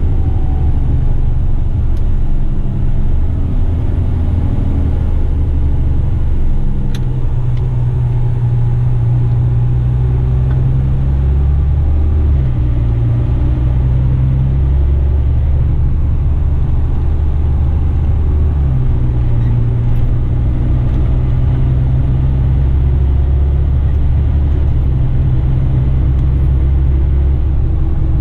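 Western Star truck's diesel engine running under way, heard inside the cab: a loud, steady low drone whose pitch steps down and up a few times as it drives.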